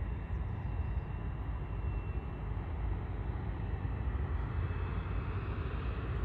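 Floatplane's engine and propeller droning steadily as it comes in low on its landing approach, growing a little louder near the end as it nears.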